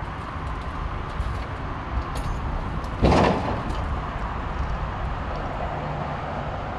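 Steady rumble of vehicles running at a crash scene, with one short, loud burst of noise about three seconds in.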